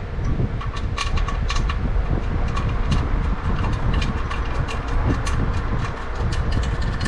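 Irregular metal clicks and clinks from hand tools and small nuts being worked on ground-wire studs, a few a second, over a steady low rumble.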